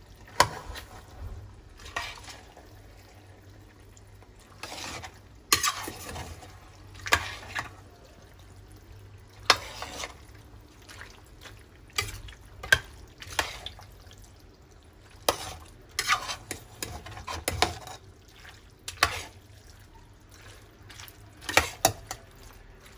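A utensil stirring thick, creamy bow-tie pasta in a stainless steel pot. It makes irregular clacks and scrapes against the pot's side and bottom, about one stroke every second.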